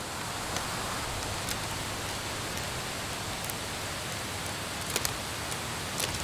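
Steady, even rushing hiss with a few short ticks scattered through it.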